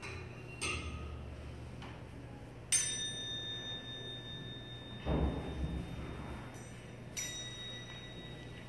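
Struck metal chimes or bells sound three times, each strike leaving a clear tone that rings on for seconds. A dull thump comes about five seconds in.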